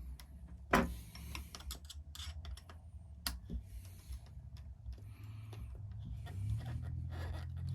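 Small irregular metal clicks and taps of pliers and a nut against the parts of a 1/5-scale RC car as the nut is worked onto its bolt, with a sharper click about a second in and another about three seconds in. A low steady hum sits underneath.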